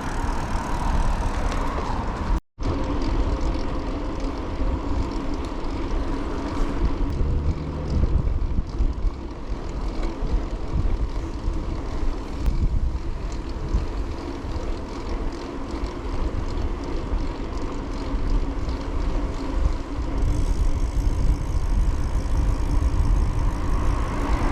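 Wind buffeting the microphone with tyre and road noise from a bicycle being ridden, over a steady hum. The sound drops out for a moment about two and a half seconds in.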